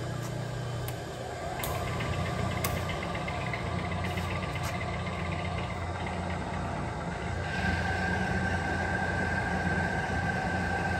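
Clausing No. 15 drill press heads with 3/4 horsepower single-phase motors running with a steady hum, with a few sharp clicks in the first few seconds. About two-thirds of the way through, a higher whine joins and the sound grows louder as the next spindle is switched on.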